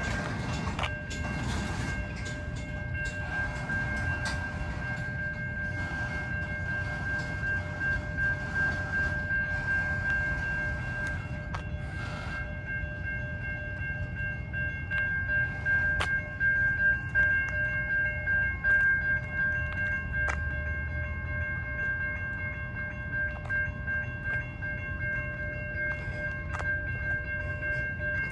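Covered hopper cars of a freight train rolling past at speed: a steady low rumble with scattered sharp clicks from the wheels on the rails. Over it, a steady high ringing tone with several pitches holds throughout.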